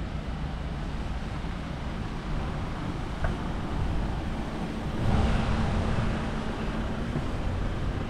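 Low wind rumble buffeting the microphone during a walk. About five seconds in, it swells into a louder rush with a steady low hum.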